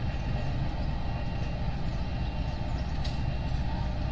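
Diesel-electric locomotive, a KAI CC 201, running its engine with a steady low rumble as it moves slowly along the track.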